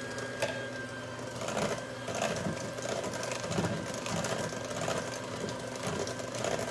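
Electric hand mixer running steadily, its beaters whipping heavy cream into cheesecake filling in a metal bowl. The mixture is being beaten until peaks form.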